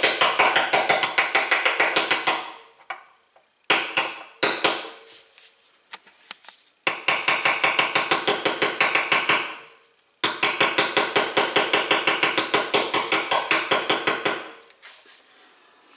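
Small hammer tapping rapidly on a steel socket, about six blows a second, each blow ringing. The socket is driving a greased seal down into a bicycle rear hub. The taps come in runs of a few seconds with short pauses between.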